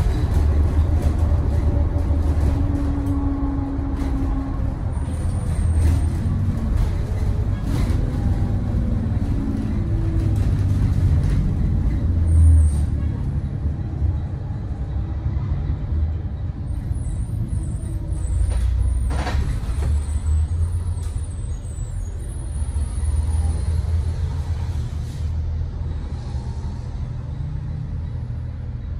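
Cabin noise from the back of a 2017 Thomas Saf-T-Liner C2 school bus under way: a steady low engine and road rumble, with a few short knocks and rattles from the body.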